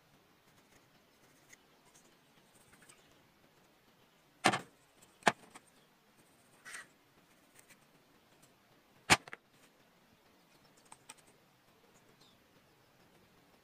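Wooden frame strips knocking on a workbench as they are handled and set down: three sharp knocks, two close together and a third a few seconds later, with fainter scrapes and taps between.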